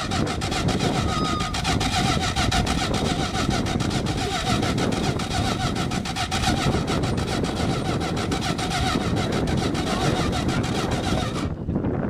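Plymouth Fury III's V8 being cranked over at length by the starter motor, a fast, even chug that does not catch, and the starter stops near the end. A hard start, which the owner puts down to fuel and ignition systems due for an overhaul.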